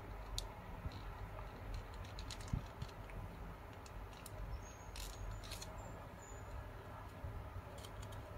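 Square origami paper rustling and crinkling under the fingers as a fold is opened out and pressed, with scattered small crisp ticks, a cluster about two and a half seconds in and another about five seconds in, over a low steady background hum.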